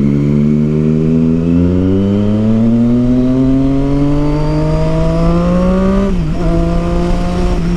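Triumph Street Triple 675's inline-three engine through a Yoshimura aftermarket exhaust, pulling hard with its note climbing steadily for about six seconds. The pitch then dips briefly and settles into a steady, lower note.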